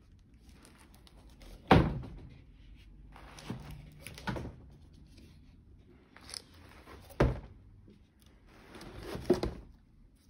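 Handling noise from framed paintings on canvas being moved: a handful of knocks and thuds, the loudest about two seconds in and about seven seconds in, with scraping and rustling between them.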